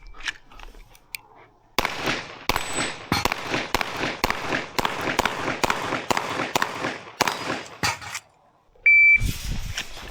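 A CZ Shadow 2 OR pistol firing a fast string of about fifteen shots over roughly six seconds during an IPSC course of fire, each shot followed by echo. About a second after the last shot, a shot timer gives one short electronic beep.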